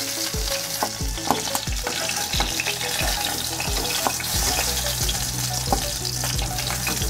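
Hot mustard oil sizzling in a kadai as fried rohu steaks are lifted out, with short clicks of the spatula on metal.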